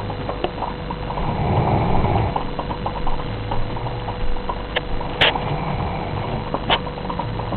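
Doberman snoring: a low snore on each slow breath, swelling and fading, with a few sharp clicks, the loudest about five seconds in.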